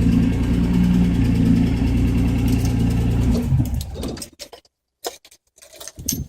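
Nissan 240Z's L24 straight-six engine running steadily, in the state the owner calls a bad engine noise, then switched off about three and a half seconds in and running down to a stop. A few faint clicks and rustles follow.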